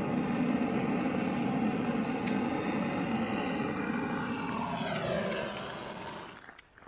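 An engine droning steadily, then falling in pitch and fading away over the last couple of seconds.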